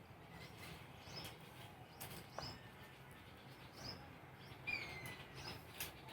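Faint, short bird chirps repeating about once a second, with one longer falling call about five seconds in.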